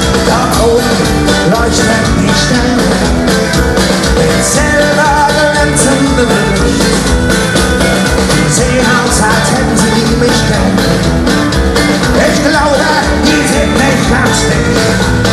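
A medieval folk-metal band plays live through a concert PA, loud and steady, with electric guitars, fiddle and singing, heard from within the audience in the hall.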